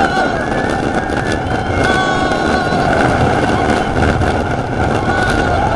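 Great Coasters International wooden roller coaster train rumbling and clattering at speed over its wooden track, heard from on board, with riders yelling in long held cries that come and go.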